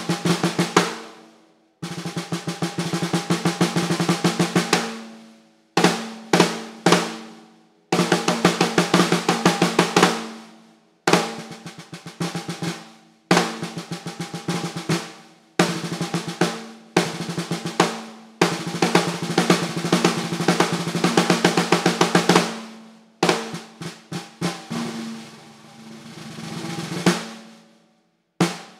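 Ludwig Aged Exotic Tamo Ash 14x6.5 snare drum, a maple-core shell with Tamo Ash inner and outer plies, played with sticks. It plays short phrases of fast strokes and rolls with brief pauses between them, the drum ringing on under the strokes. Near the end a softer roll swells up and stops.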